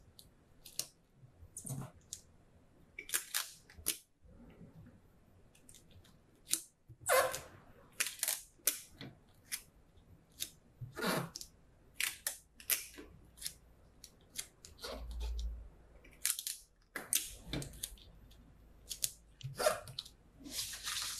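Paper pattern sheets rustling and crinkling in short, irregular strokes as hands smooth and tape them together.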